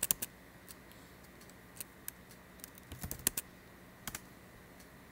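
Keystrokes on a computer keyboard: scattered single clicks, with a quick run of several keys about three seconds in.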